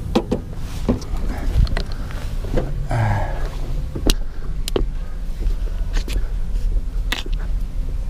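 Scattered clicks and knocks over a steady low rumble as someone climbs into a van's interior and moves between the seats. A short mid-pitched noise sounds about three seconds in.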